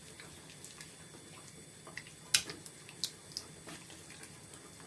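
Quiet kitchen with a few light clicks and taps of a utensil against a saucepan, two sharper ones a little past the middle.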